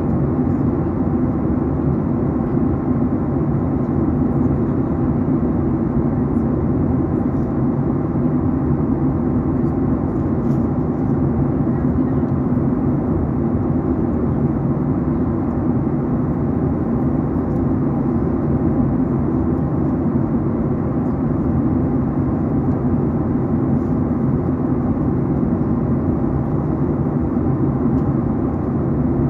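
Steady cabin noise inside a Boeing 737 MAX 8 airliner during descent: an even low roar of airflow and its CFM LEAP-1B engines, with no change in level.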